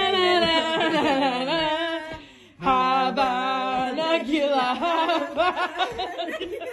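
A high singing voice, its pitch wavering, in two long phrases with a short break a little over two seconds in.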